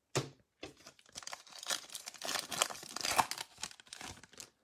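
Foil trading-card pack torn open by hand: a short rip just after the start, then the wrapper crinkles continuously from about a second in until near the end as the cards are pulled out.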